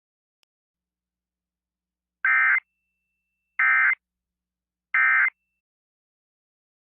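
Emergency Alert System end-of-message code: three short, identical bursts of SAME digital data tones, about a second and a half apart, marking the end of the alert.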